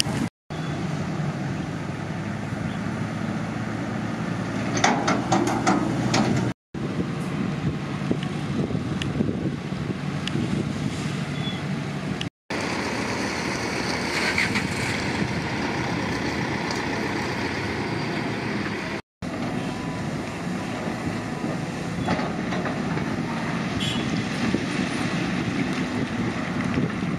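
Diesel engines of heavy construction machinery, a Caterpillar 320 tracked excavator and a dump truck, running steadily, with scattered metallic clanks and knocks. The sound is in several takes, each cut off abruptly before the next begins.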